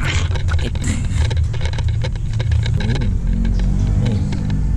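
Wind rumbling on an unshielded camera microphone, with small metallic clicks and scrapes as the tight oil filler cap is worked off the Honda CBR150R's engine cover.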